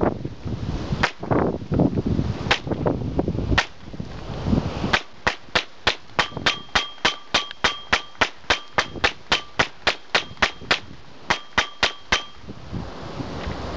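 Gunshots fired at a laptop: three single shots, then a fast string of about 25 shots at roughly three a second, with a brief pause near the end. Many of the later shots carry a short ringing tone.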